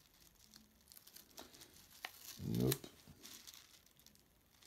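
Faint rustling and crinkling of a paper sticker being handled and pressed against a plastic toy wall, with a few small clicks of fingers on the plastic.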